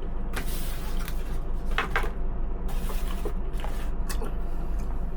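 Mealtime handling sounds: a few short scrapes and rustles from a fork or spoon in a ready-meal tray, over a steady low hum.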